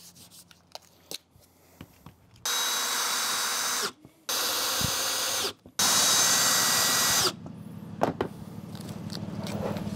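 Cordless drill driving screws through a metal piano hinge into plywood: three steady whining runs of a second or so each, starting about two and a half seconds in, with the third the loudest.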